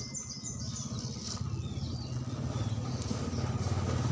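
Small RC crawler's motor and gearbox running with a low, fast-pulsing drone as it climbs over rocks, growing louder toward the end. A bird chirps a few times at the start.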